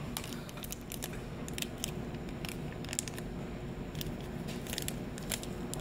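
Plastic blind-bag packaging crinkling and crackling in small irregular clicks as it is picked at and torn open by hand.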